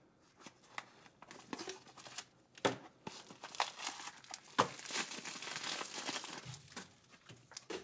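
Bubble wrap around a LiPo battery crinkling as it is pulled out of its cardboard box and handled, densest in the second half. There are a few sharp knocks and taps from the box in the first half.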